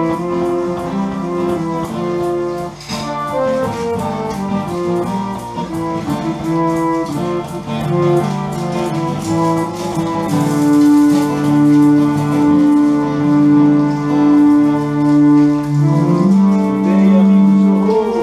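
A small band playing an instrumental piece live, with an electronic keyboard holding sustained organ-like chords among the other instruments. In the second half a held note swells and fades in a steady pulse a little under a second apart, and the chord changes near the end.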